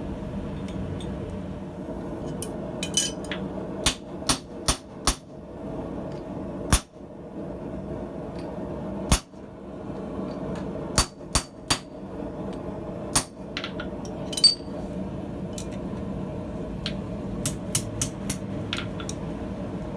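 Hand hammer striking hot steel on an anvil during forging: single blows and quick groups of three or four, with pauses between, over a steady background roar.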